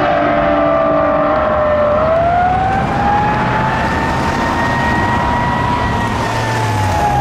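Fire apparatus siren on a slow wail: the pitch sinks, climbs again about two seconds in, holds, then slowly falls near the end. Under it runs steady traffic and engine noise.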